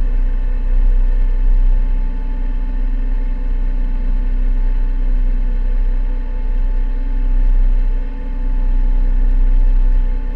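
A sailboat's auxiliary engine running steadily under way, a constant drone with a few fixed tones over a heavy low rumble that swells and dips a little.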